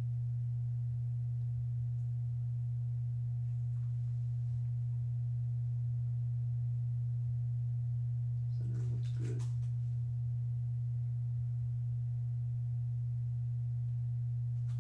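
Steady low electrical hum, one unbroken tone, with a brief soft noise about nine seconds in.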